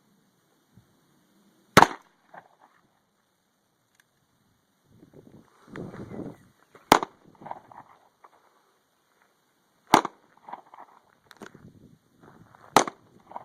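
Four handgun shots, slowly spaced about three seconds apart, with quieter rustling and handling sounds in between.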